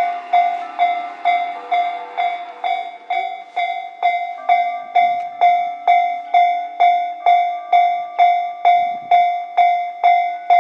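Japanese level-crossing warning bell ringing steadily, a single electronic ding repeated about two and a half times a second. For the first few seconds a rail vehicle's running noise sits underneath, then fades.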